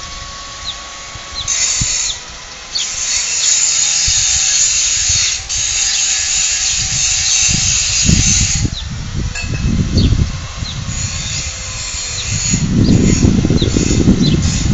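Outdoor ambience: a high, hissing whir that starts and stops abruptly several times, over a small bird giving short chirps again and again. Low rumbling comes in over the last few seconds.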